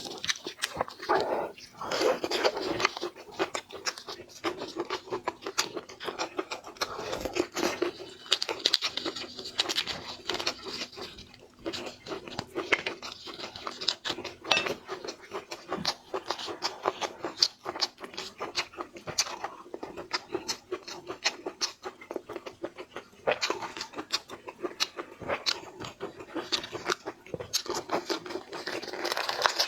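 Close-up eating sounds of spicy seafood: irregular crunching, biting and chewing, with many sharp clicks and crackles.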